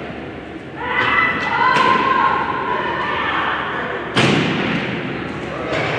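Broomball play on an indoor ice rink: voices calling out across the ice, light knocks of brooms and ball, and about four seconds in one loud thud that echoes through the arena.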